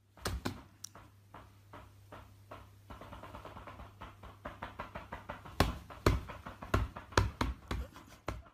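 A kitten playing on a bed: a run of light taps and knocks, quicker for a couple of seconds in the middle, then about half a dozen louder thumps in the second half, over a low steady hum.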